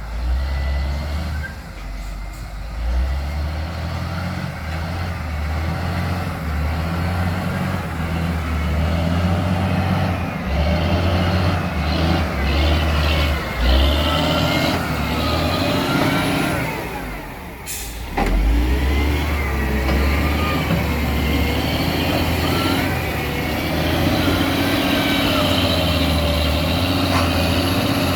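Heavy diesel earthmoving machinery working, its engine note rising and falling under load. The sound dips briefly near the middle, and a sharp click follows.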